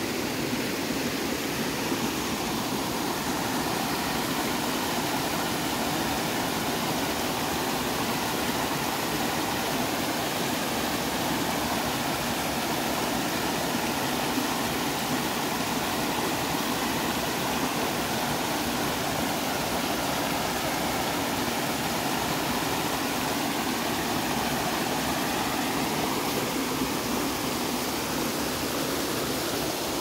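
Mountain creek water running and splashing over rocks in small cascades: a steady rush.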